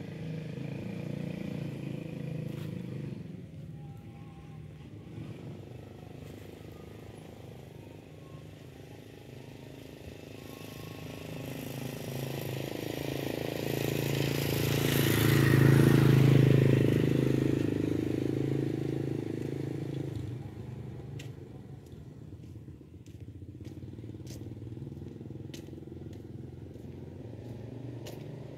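A motor vehicle passing by: a low engine hum that swells to its loudest about halfway through and then fades away. A few faint clicks come near the end.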